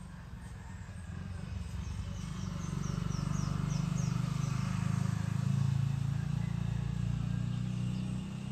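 Outdoor morning ambience with a bird giving a quick run of high, falling chirps, several a second. Under it is a low rumble that swells to its loudest in the middle and eases near the end.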